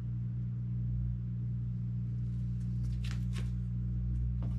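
A steady low hum of several tones, with brief rustles about three seconds in as plastic-bagged comic books are handled and laid on a pile.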